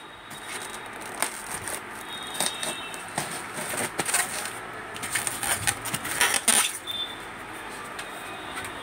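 Thermocol (expanded polystyrene) packing case being opened by hand: irregular scrapes, creaks and rustles, with sharp clicks, as the taped seam is split and the foam lid is pulled off.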